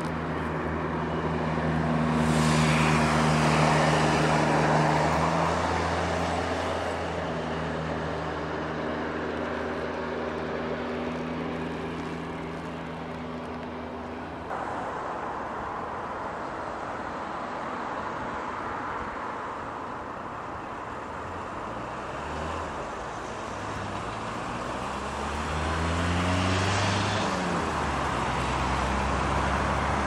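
Road traffic: a vehicle engine hums steadily while cars pass. The sound changes abruptly about halfway through, and near the end another vehicle goes by, its engine note rising and falling.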